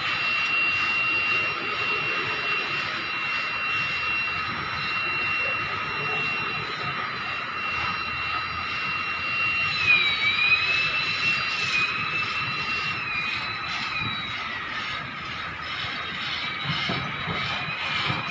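Small camera drone's propellers whining steadily, several high tones together; the pitch dips and wavers about ten seconds in as the drone manoeuvres.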